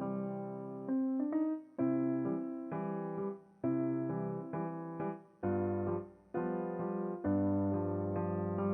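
Background piano music: a slow, gentle melody of single struck notes and chords, each ringing and fading before the next.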